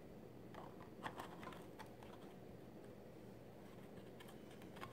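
Faint light clicks and taps of laser-cut MDF pieces knocking together as a tier of the paint rack is set onto its tabs, mostly in the first two seconds with a few more near the end.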